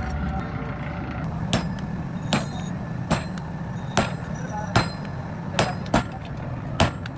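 Blacksmith's hammer striking iron on an anvil, eight blows at roughly one a second, each with a brief metallic ring, over a steady low hum.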